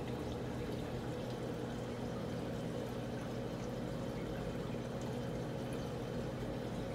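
Steady sound of water circulating through a saltwater aquarium, with a low pump hum underneath.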